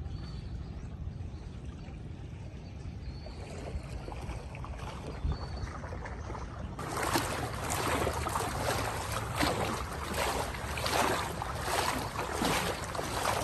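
A low steady rumble at first, then from about seven seconds in, rhythmic splashing and sloshing of legs wading through deep floodwater, one splash per stride.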